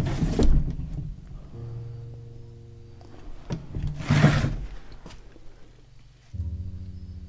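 Close handling of a wooden cabinet: two short rustling, scraping rushes, one at the start and one about four seconds in, as hands work the cabinet doors. A low steady hum runs underneath and cuts out and back in abruptly.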